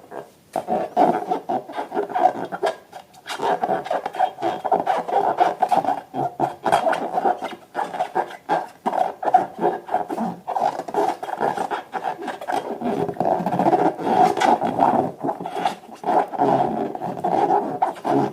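Rubber balloons and slime being handled and squeezed: continuous rough rubbing and squeaking, dotted with many small clicks and squelches.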